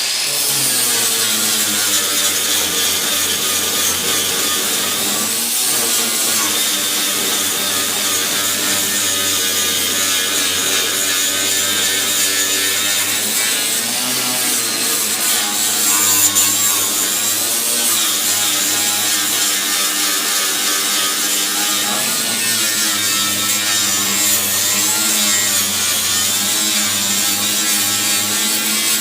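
Angle grinder with a 60-grit flap wheel grinding down MIG weld beads on a steel quarter-panel patch: a steady motor whine over the rasp of the abrasive on metal, its pitch wavering slightly.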